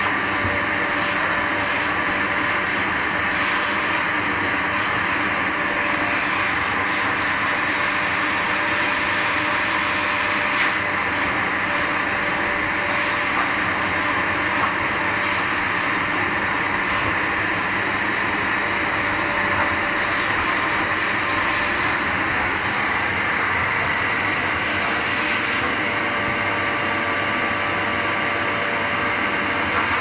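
Canister vacuum cleaner running steadily: a constant rush of air under a high motor whine, its hose nozzle drawn over a dog's coat.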